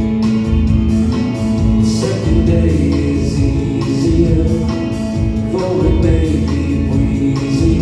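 Live band music: a man singing over guitar, bass and drums.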